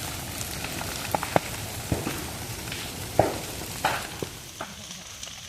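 Cut, dried vegetation of a jhum (slash-and-burn) field burning: a steady hiss with irregular sharp crackles and pops.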